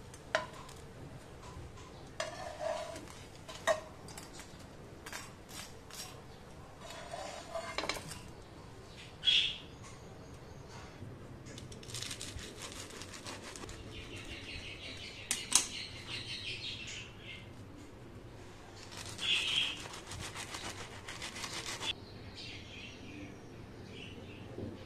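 Metal spatula clicking and scraping on a pan, then a knife sawing with a rough crunching scrape through crisp toasted bread on a wooden board, in two longer strokes. Birds chirp faintly in the background.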